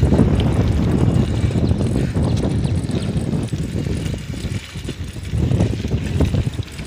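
Wind rushing over the microphone with the rumble of bicycle tyres rolling on rough asphalt as the bike runs downhill; a low, fluttering noise that eases a little after about four seconds.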